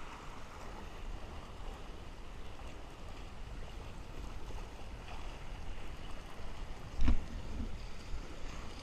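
Steady low rumble of wind and water around a small fishing boat at sea. A single loud knock sounds about seven seconds in, followed by a couple of lighter knocks.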